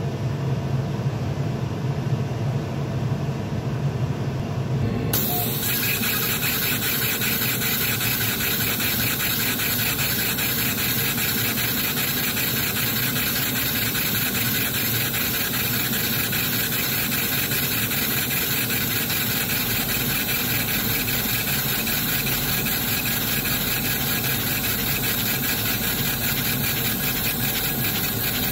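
Laser engraver raster-engraving a photo into plywood: the laser head's carriage runs rapidly back and forth in an even, repeating rhythm over a steady hiss. For about the first five seconds only a lower hum is heard, before the machine's sound takes over.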